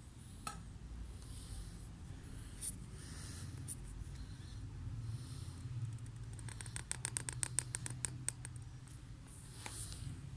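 Faint scratching of a chisel-tipped calligraphy pen nib on paper as strokes are drawn, with a quick run of fine scratchy clicks, about ten a second, for a couple of seconds past the middle. A low steady hum runs underneath.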